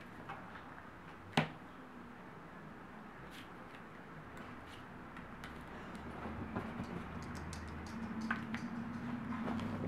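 Small plastic clicks and taps as rubber bands are handled and stretched onto a plastic bracelet loom, one sharper click about a second and a half in. A steady low hum comes in from about six seconds.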